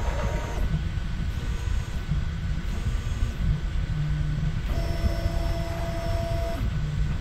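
3D printers running: a steady fan hum under short stepper-motor tones that come and go as the print heads move, with one steady motor whine held for about two seconds in the middle.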